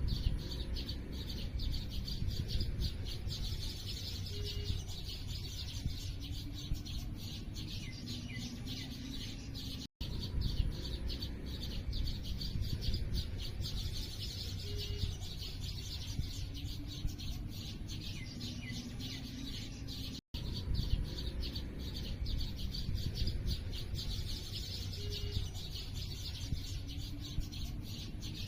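Many small birds chirping and twittering rapidly together, a dense unbroken chatter with some lower calls mixed in. The same few-second recording loops about every ten seconds, with a brief dropout at each join.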